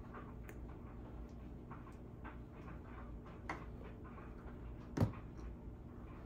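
Quiet kitchen handling noises: scattered small clicks and taps of utensils and containers around a plastic blender jar, with one sharper knock about five seconds in, over a low steady hum.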